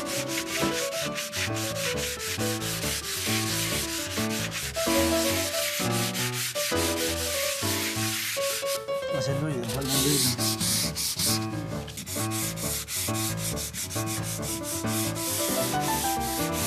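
Sandpaper on a hand sanding block rubbed back and forth over filler patches on a wall, a quick run of rasping strokes, with one longer, brighter stroke about ten seconds in.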